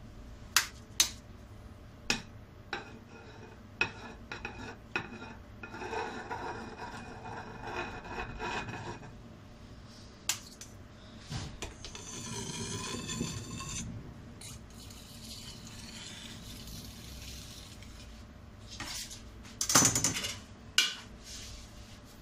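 Metal palette knife scraping and smoothing whipped-cream frosting on a cake, with the knife and cake board giving sharp clicks and taps now and then. The loudest knocks come about 20 seconds in.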